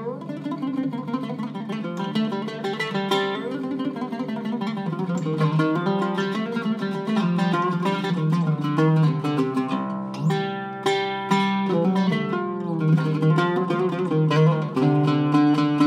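An Iraqi-style Zaryab oud with a cedar soundboard and a wenge and sapele back, played solo with a plectrum: a continuous stream of quick plucked notes.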